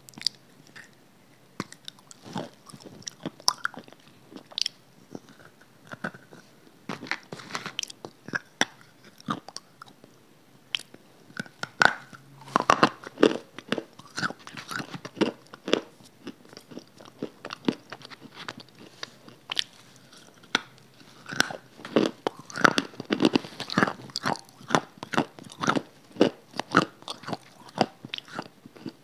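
Close-miked biting and chewing of a hard, chalky grey block: sharp crunches one after another, sparse at first and densest from about twelve seconds in and again near the twenty-second mark.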